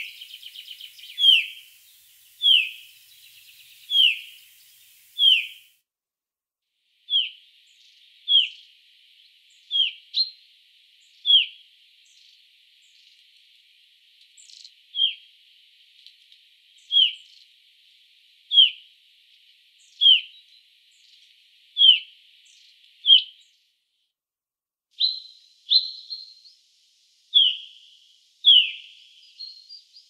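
Common chaffinch of the Black Sea subspecies giving a short call over and over, each a single downward-sliding note, one every second or two.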